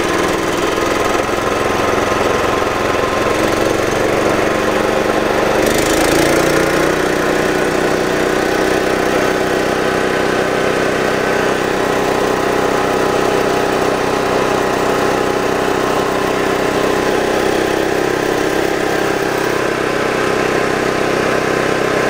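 The Victory MDWC1500 wood chipper/shredder's 13.5 HP gas engine runs steadily as it warms up after a cold start, with the choke eased off. About six seconds in, the engine speed picks up slightly and then holds steady.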